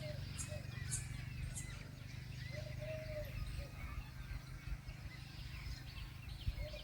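Birds calling: a short, low call phrase repeats about every three and a half seconds among scattered higher chirps, over a steady low rumble.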